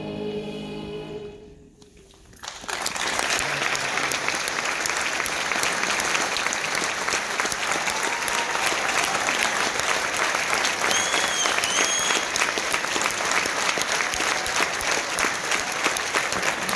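A children's choir and piano hold a final chord that dies away within the first second and a half; after a brief hush, an audience claps steadily for the rest of the time, with two short high-pitched calls about two-thirds of the way through.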